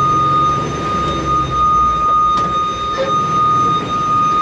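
Old Ford F900 fire truck's gasoline engine running as it drives, heard from inside the cab, with one steady high-pitched tone held throughout.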